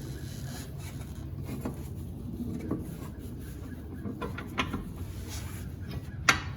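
Scattered light clicks and knocks of metal suspension parts being handled as a CV axle is slid back into a Subaru front wheel hub and the tie rod refitted, with one sharper clack near the end. A steady low hum runs underneath.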